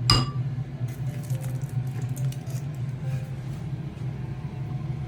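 Kitchen handling noises: a sharp click at the start, then a few light metallic clinks, over a steady low hum.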